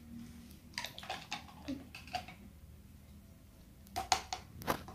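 Light clicks and knocks of plastic toy popsicle-maker parts being handled, a container and a spoon, with a cluster of sharper clicks near the end.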